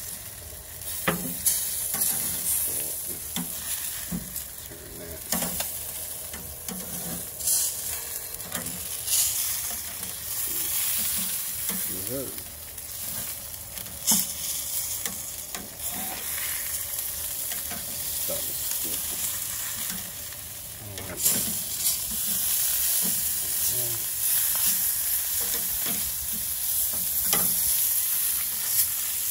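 Chicken pieces sizzling on a grill's hot grates, a steady hiss, with scattered sharp clicks of metal tongs against the grate as the pieces are turned.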